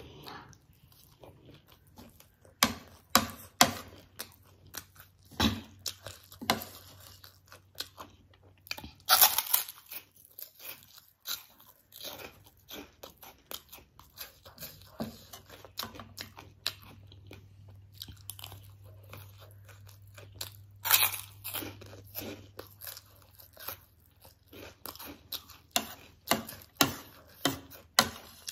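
Close-miked crunching and chewing of crunchy snack food, spicy chatpate with fried gol finger sticks: irregular sharp crunches between quieter chewing, a few bites much louder than the rest.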